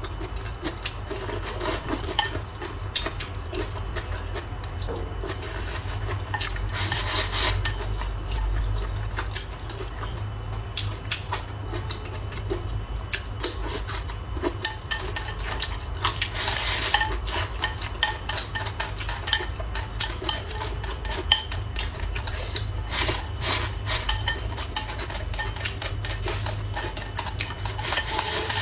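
Eating utensils clicking and scraping against bowls and dishes during a meal, in many short irregular knocks and clinks. A steady low hum runs underneath.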